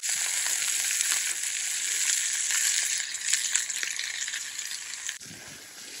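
Steak searing in hot oil in a cast-iron skillet over a wood fire: a loud, steady sizzle that drops sharply about five seconds in, leaving a fainter sizzle.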